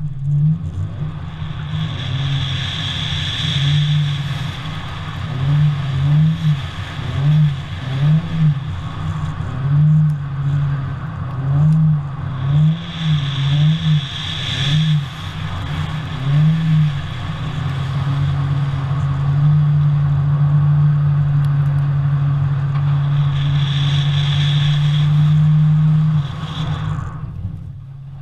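Supercharged Toyota 86's flat-four engine revving up and down in quick throttle changes, then held at high revs for several seconds before easing off near the end. Three bursts of tyre squeal come as the car slides.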